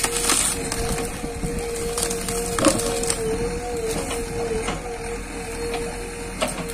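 JCB 3DX backhoe loader's engine running with a steady hum while its backhoe bucket rips out a tree's roots and brush, with woody cracking and snapping. The loudest crack comes about two and a half seconds in, and another comes near the end.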